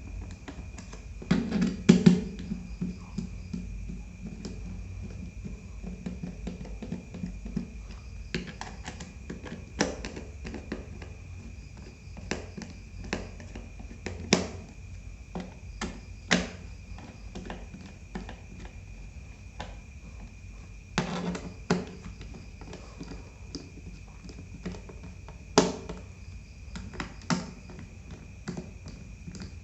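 Scattered clicks, taps and a few louder knocks of a laptop's plastic bottom cover and its screws being handled and fastened back in place.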